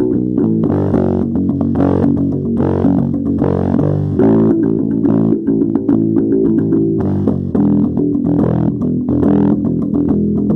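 Music led by plucked guitar and bass, with sustained notes changing every second or so.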